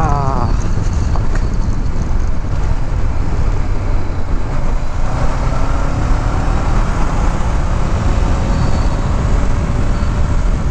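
Honda CBR500R parallel-twin engine running at road speed, heard from the rider's seat under a steady rush of wind and road noise. Its pitched note comes through more clearly around the middle as the bike passes a vehicle.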